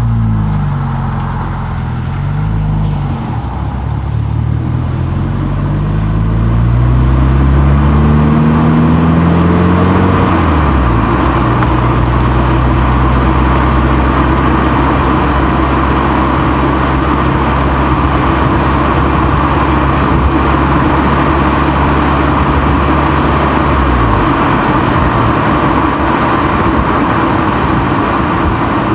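A moving car heard from a microphone mounted on the outside of its body: engine and tyre noise as it drives. The engine note climbs and drops several times in the first ten seconds or so, then holds steady while cruising. About 24 seconds in it falls away, leaving the steady rush of tyres and road.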